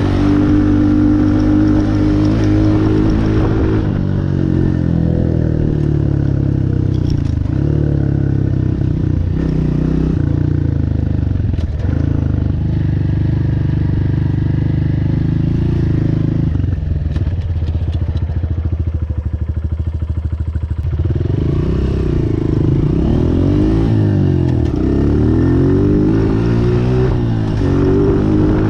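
Honda CRF125F Big Wheel's single-cylinder four-stroke engine running while ridden, its pitch rising and falling with the throttle. It settles to a lower, steadier note for a few seconds past the middle, then climbs and drops repeatedly near the end.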